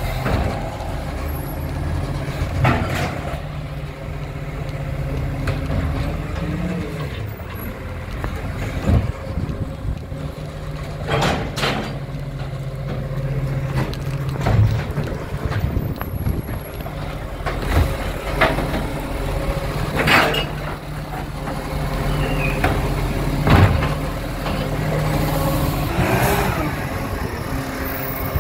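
Side-loader recycling truck working a row of bins: its diesel engine runs steadily, and the pitch steps up and down in long stretches as the hydraulic lifting arm works. Repeated sharp hisses and knocks come about ten times, typical of air brakes and bins being handled.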